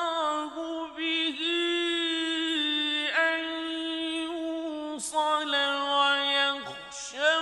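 A man's voice reciting the Quran in the melodic mujawwad style, holding long drawn-out notes and sliding between them with ornamented turns and brief breaks.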